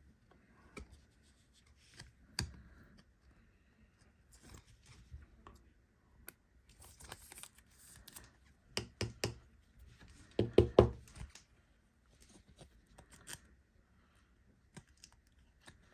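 Trading cards and clear plastic card sleeves being handled at a table: soft rustling and sliding with scattered light taps, and a louder cluster of taps and scrapes a little after ten seconds in.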